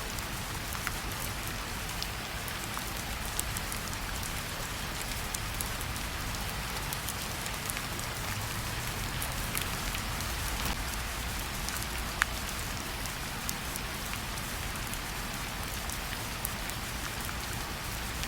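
Steady rainfall: an even patter of rain with scattered sharper drop ticks, one standing out about twelve seconds in.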